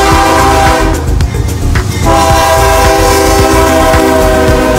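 CSX diesel locomotive's air horn blowing at close range: a chord that stops about a second in, then a longer blast starting about two seconds in, over the low rumble of the passing locomotive and its wheels.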